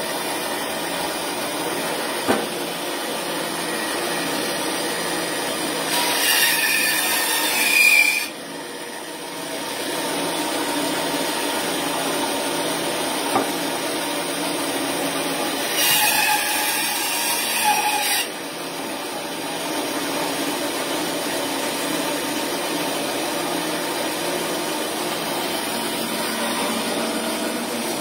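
Bandsaw running steadily while its blade cuts through frozen bone twice. Each cut lasts about two seconds and is louder and higher-pitched than the saw running free.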